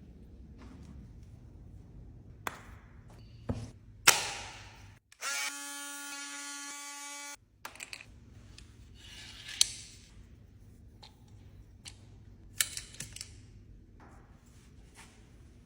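Scattered clicks and knocks of objects being handled, with one sharp knock about four seconds in, then a small electric motor buzzing steadily for about two seconds before cutting off suddenly.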